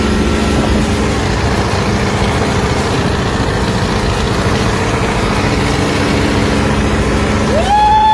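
Large engine of the Bentley-engined custom Porsche 911 Targa running at speed, a steady heavy drone mixed with road and wind noise. A little after seven seconds in, a single high tone rises quickly and is held, louder than the engine.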